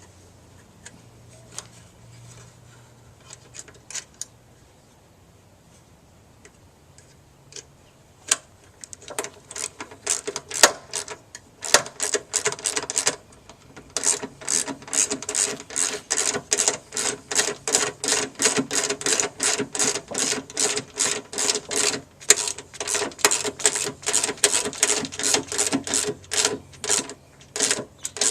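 A hammer striking metal over and over. It starts with a few scattered taps about eight seconds in, then settles into a steady run of about three to four blows a second, each with a short metallic ring.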